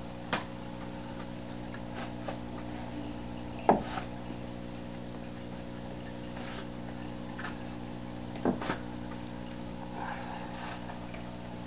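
Aquarium pump running with a steady hum and water trickling in a turtle tank. A few short sharp knocks break in: one early, the loudest about four seconds in, and two close together near nine seconds.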